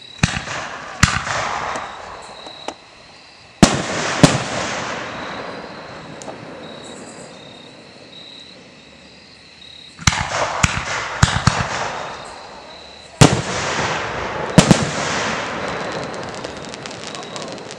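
Aerial fireworks going off: sharp reports in clusters, two near the start, a pair a few seconds in, a quick run of cracks around ten seconds, and two more near the end, each trailing off in a long fading tail.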